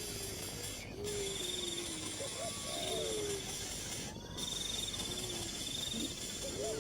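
Bird calls: short low whistled notes that glide and waver, over a steady hiss. A high pulsing trill runs for about a second early on, then again for a couple of seconds in the middle.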